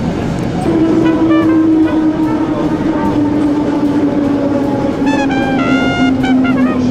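Historic tram running, its electric traction motors whining in one steady tone that slowly drops in pitch as the car slows, over the rumble of the wheels and running gear. A few short, higher sounds rise above it about five seconds in.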